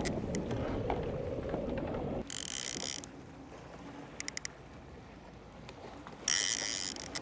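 Fishing reel ratcheting in two short buzzing bursts, with a quick run of clicks between them, as a hooked albacore is fought on a trolling rod. A steady rush of boat and water noise underneath drops away about two seconds in.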